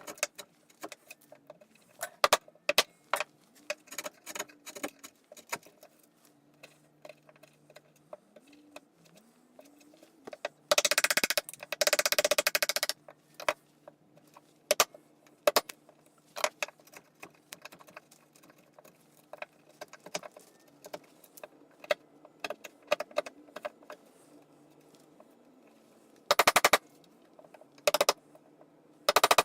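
Metal tail-vise parts and hand tools clinking and knocking while the vise is fitted to a workbench. There are bursts of rapid clicking for about two seconds near the middle and twice more near the end.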